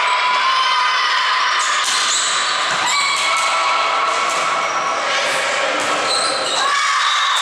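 Volleyball rally in a sports hall: the ball struck several times by players' hands and arms, shoes squeaking on the wooden floor, and girls' voices shouting from the court and the sidelines, all echoing in the hall.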